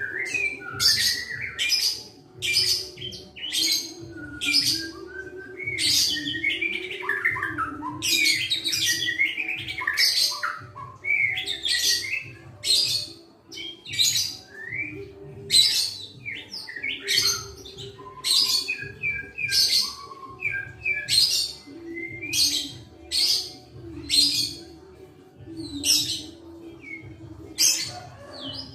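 A young captive white-rumped shama singing steadily: a string of short, varied, high whistled phrases, about one a second.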